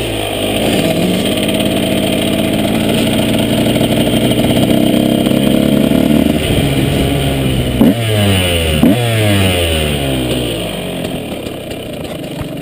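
KTM 125 SX single-cylinder two-stroke motocross engine running under throttle. About eight and nine seconds in the throttle is blipped twice sharply, and the revs fall away after each blip. Toward the end the engine runs lower and quieter.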